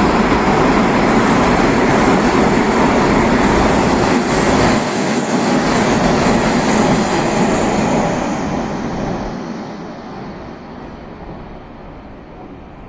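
Hanshin Electric Railway train running, loud and steady, then fading from about eight seconds in.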